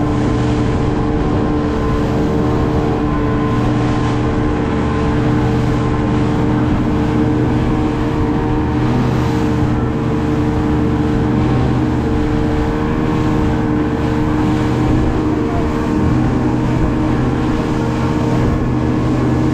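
Motorboat engine running steadily at speed, one unchanging drone, over the rush of water and spray off the hull.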